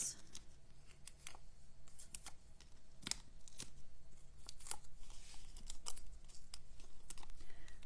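Faint scattered clicks, ticks and paper rustles from handling a paper die-cut while peeling foam adhesive dimensionals off their backing and pressing them onto it.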